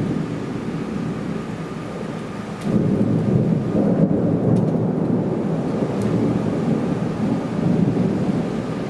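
Thunder rolling in a long, low rumble. It swells at the start and again more loudly about three seconds in, then slowly eases off near the end.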